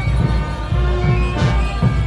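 Brass band with sousaphones playing, held brass notes over a steady low bass, with a few percussion hits about the middle.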